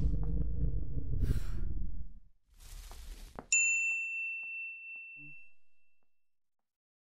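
Animated-logo sound effects: a low rumble fades out about two seconds in, a short swish follows, then a single bright high-pitched ding rings out and dies away over about two seconds.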